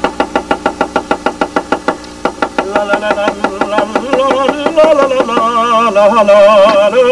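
Chef's knife slicing a red onion on a wooden cutting board: rapid, even taps, about eight a second, through the first few seconds. Music with a wavering melody comes up in the second half.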